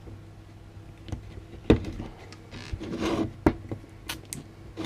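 A handful of sharp clicks and a scraping rub from hand tools working a circuit board off a pack of lithium-ion battery cells.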